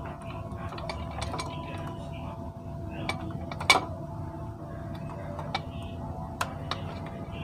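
Light scattered clicks and clinks of hands handling a TV power-supply circuit board and its small components, with one sharper click about three and a half seconds in, over a faint steady hum.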